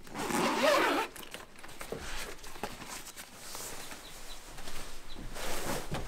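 A zipper pulled in a quick burst, then scattered rustling and small clicks of handled gear, and another zipping pull near the end.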